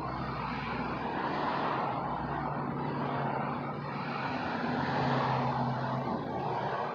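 Engine hum of a passing motor vehicle: a steady drone that swells gently and peaks about five seconds in.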